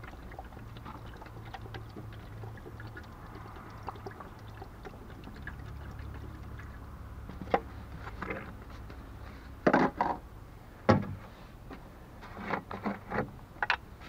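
Distilled water pouring from a small plastic bottle into a car radiator's filler neck while the cooling system is being filled. In the second half come several sharp knocks and clatters of plastic bottles being handled.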